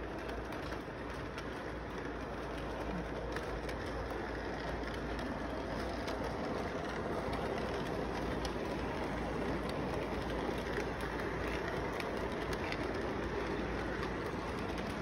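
Electric model train running past on its track: a steady rolling rumble of the locomotive and cars, with occasional light clicks of the wheels, a little louder from about halfway as the locomotive passes close by.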